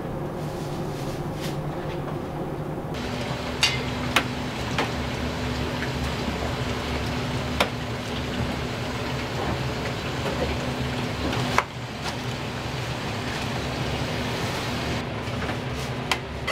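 Restaurant kitchen at work: a steady rushing din of cooking equipment, with four sharp clanks of metal pans and utensils spread through it. A low hum joins the din about three seconds in and stops with the loudest clank, past the eleven-second mark.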